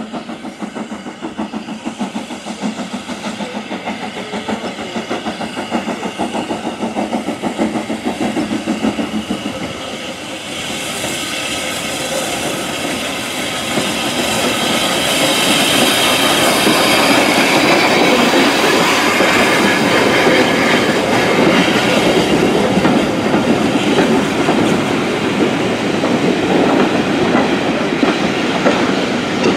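WD Austerity 2-10-0 steam locomotive working a train past the platform: quick, even exhaust beats as it approaches. About ten seconds in it gets louder, with a hiss of steam as the engine draws level, then the coaches rumble by with the clickety-clack of wheels over rail joints.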